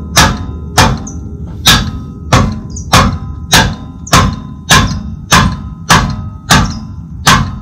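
A mallet steadily hammering the handle of a Siebenrock exhaust-nut wrench, about twelve even blows spaced a little over half a second apart. Each blow leaves a brief metallic ring. The hammering is meant to shock loose a seized star exhaust nut on a BMW Airhead boxer twin.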